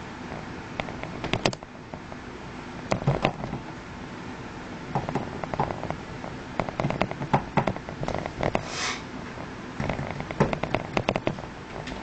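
Clusters of small sharp clicks and knocks: a circuit board being slid into a paintball marker's grip frame and fitted by hand. A short sniff comes about nine seconds in.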